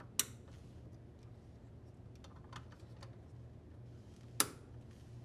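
Plastic wire harness connectors clicking into place as they are plugged onto the washer's drain pump and mode shifter: a sharp click just after the start and a louder one about four seconds in, with faint small clicks of handling in between. A low steady hum runs underneath.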